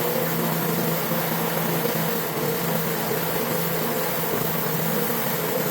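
Pressure washer running steadily: an engine hum under a constant hiss of spray.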